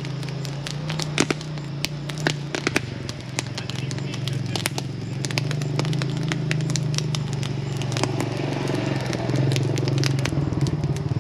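Honda 400 quad's single-cylinder engine idling steadily, a little louder in the second half, with a campfire crackling and popping over it.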